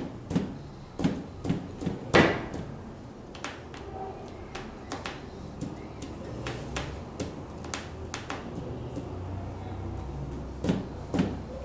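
Scattered knocks, clicks and clunks of a classroom at work, irregular, the loudest about two seconds in and another pair near the end.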